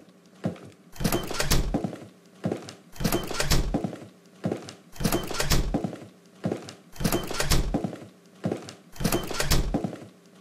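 A short cluster of thunks, repeated five times about two seconds apart, as one animated character after another leaves the room.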